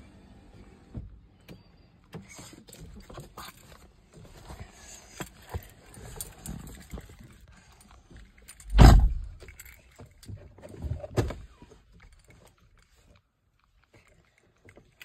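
Scattered clicks, knocks and rustles of hands handling things in a car interior, with one loud thump about nine seconds in and a smaller knock near eleven seconds.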